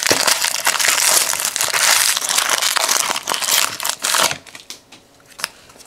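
Foil wrapper of an NBA Hoops trading card jumbo pack crinkling loudly as it is torn open by hand, for about four seconds, then only a few faint rustles and clicks.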